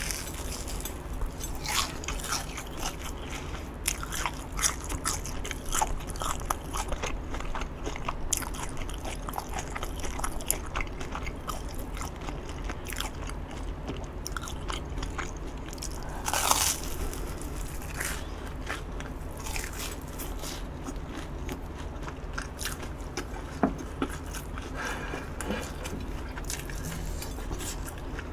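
Biting into and chewing a deep-fried battered Korean hotdog, the crust crunching in many small crackles, with one louder crunch about halfway through.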